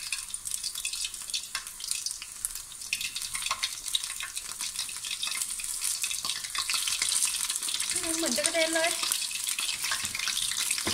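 Battered acacia-flower fritters deep-frying in hot oil in a pan: a steady crackling sizzle full of sharp pops, getting louder about halfway through.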